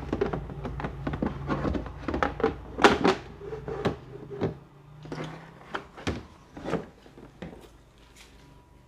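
Plastic drawer-cabinet parts being handled and fitted together: a run of irregular plastic clicks and knocks, loudest about three seconds in and thinning out toward the end.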